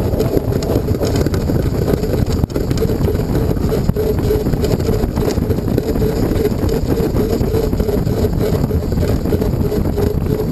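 Heavy wind rumble on a microphone riding on a human-powered aircraft as it rolls down the runway on its take-off run. From about two seconds in, a steady whirr pulses along with it about three times a second.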